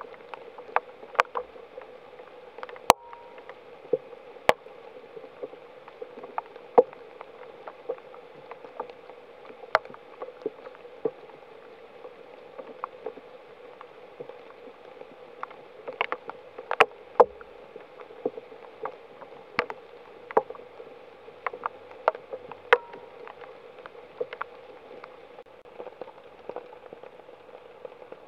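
Steady rain in woodland, with large drops landing close by in irregular sharp taps, some much louder than the rest.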